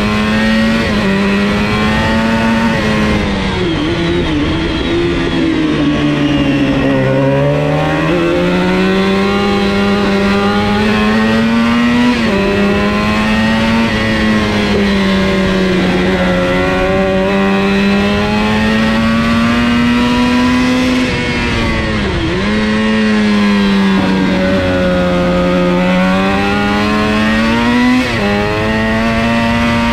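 400 cc supersport racing motorcycle engine at high revs under race load, heard from the bike itself. The pitch climbs and falls through the gears, sagging low for a corner about seven seconds in, with sharp brief drops at gear changes near twelve, twenty-two and twenty-eight seconds.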